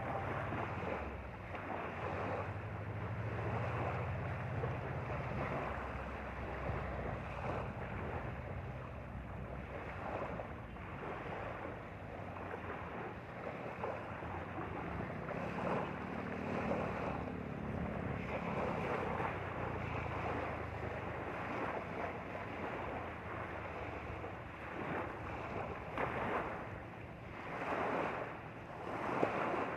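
Small lake waves lapping and splashing at the shore in irregular surges, with wind rumbling on the microphone.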